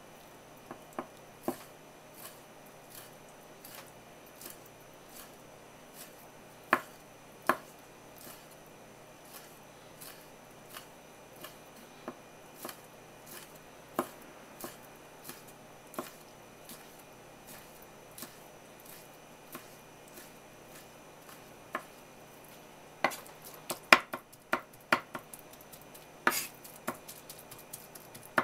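A kitchen knife taps on a wooden cutting board as raw sardine is sliced, single strokes spaced roughly half a second to a second apart. Near the end the strokes come faster and louder as the fish is chopped finely.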